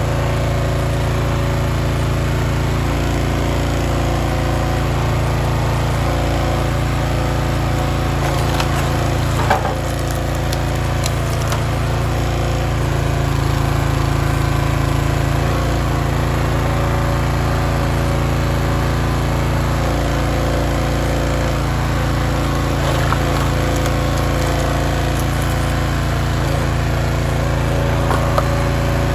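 Hydraulic log splitter's gas engine running steadily while rounds are split, with a few sharp cracks of wood giving way, the loudest about nine and a half seconds in.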